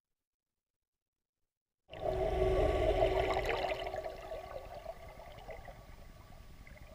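Underwater sound of a small remote-controlled survey boat passing overhead: a steady motor whine over a low rumble and churning water. It starts abruptly about two seconds in, is loudest for the next couple of seconds, then fades as the boat moves away.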